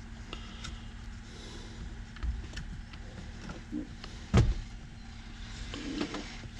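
Steering column parts being handled and fitted back together: scattered clicks and light knocks, with one loud knock a little over four seconds in, over a steady low hum.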